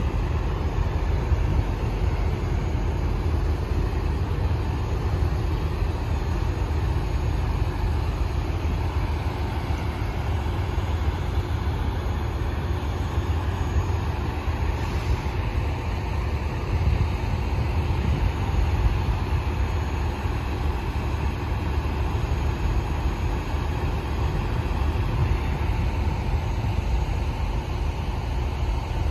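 Steady low rumble of parked diesel semi trucks idling, an even drone with no breaks.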